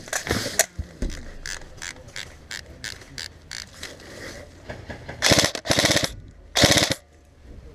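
Scattered snaps of airsoft gunfire through the first few seconds, then an electric airsoft rifle fires two short full-auto bursts close by, about five and six and a half seconds in, its gearbox cycling rapidly.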